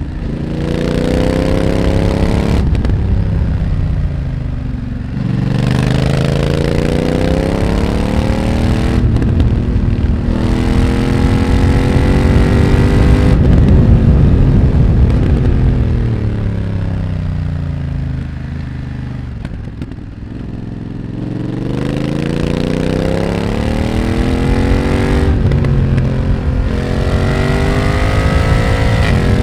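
BMW F900R's parallel-twin engine through a Mivv X1-M exhaust under hard acceleration: the revs climb through a run of quick upshifts, each a brief cut in the sound, over the first dozen seconds or so. The revs then fall away for about six seconds as the bike slows, and climb again with two more quick upshifts near the end.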